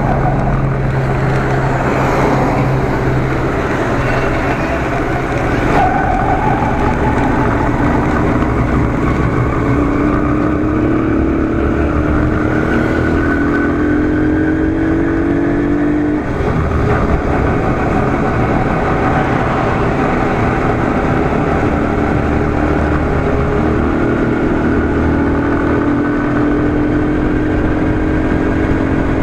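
Motorcycle engine running while riding along a road, over steady wind and road rumble. The engine note climbs, drops abruptly about halfway through as it shifts up a gear, then climbs again.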